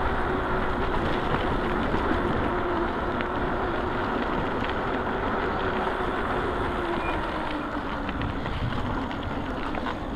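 Electric bike being ridden: a steady motor whine over tyre rumble and wind buffeting the chest-mounted microphone. The whine drops in pitch and fades about seven seconds in as the bike slows.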